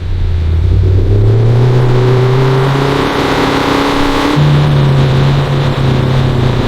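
Car engine running and revving: its pitch climbs slowly over the first two seconds, then steps up about four seconds in and holds.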